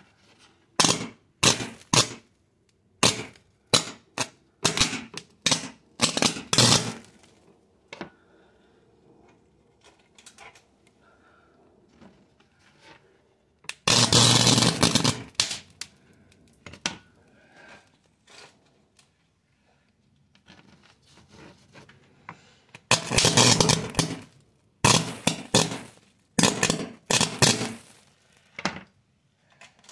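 Sparks and flame bursting from a charred circuit board: a string of sharp cracks and pops, then a hissing spray of about a second and a half about halfway through, and a second one followed by more pops near the end.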